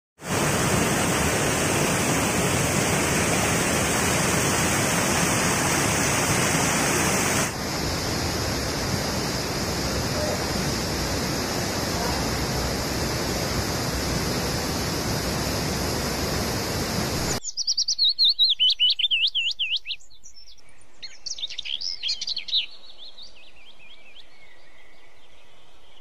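Rushing water splashing over rocks, then a waterfall's steady rush, loud and even, for most of the first seventeen seconds. It cuts off abruptly and is followed by a bird singing rapid warbling phrases, twice, over faint background.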